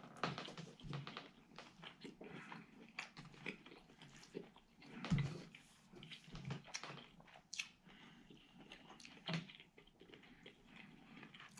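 A person chewing a mouthful of microwaved beef and broccoli, with irregular soft clicks and crunches and a few duller thumps.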